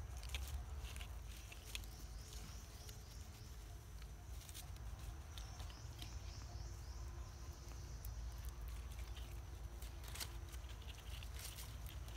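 Faint outdoor ambience: a low rumble with scattered light ticks and rustles, and a faint steady high drone.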